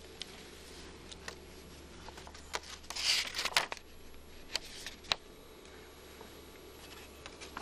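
Paper rustling as a folded letter is handled and unfolded, the loudest rustle about three seconds in, with a few light ticks of handling before and after.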